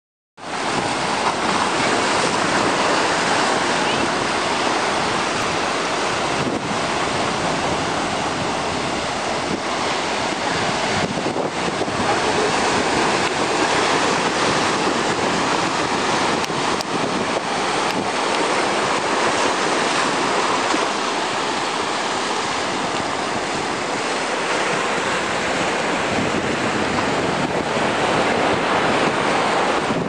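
Atlantic surf breaking and washing over a rocky volcanic shoreline: a steady rush of waves that swells and eases.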